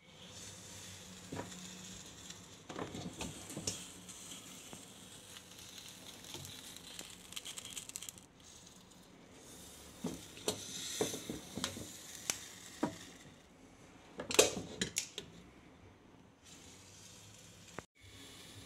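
Faint hiss of peppers and chillies sizzling on the hot stone of a G3 Ferrari electric pizza oven, with scattered clicks and knocks, the loudest about fourteen seconds in.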